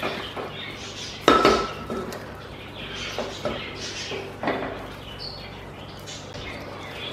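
A wooden spatula stirs and scrapes potato and brinjal pieces in a pressure cooker, with several irregular knocks of the spatula against the pot. The loudest knock comes about a second in.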